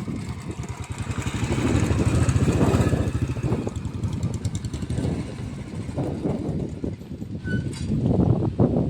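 Royal Enfield Bullet single-cylinder motorcycle engine running, its low exhaust beats coming in quick, even pulses, growing louder about two seconds in and again near the end.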